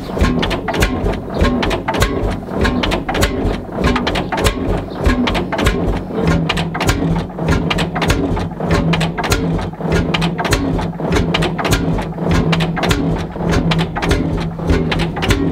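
1952 Lanz Bulldog 45 hp tractor's single-cylinder two-stroke hot-bulb diesel running at low speed: a quick, even train of sharp exhaust beats, one after another.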